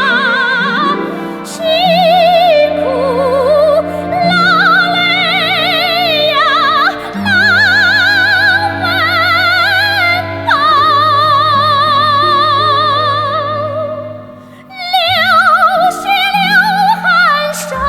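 Slow Chinese ballad music: a high, strongly vibrato melody line over long held low accompaniment notes, easing off briefly near the end before picking up again.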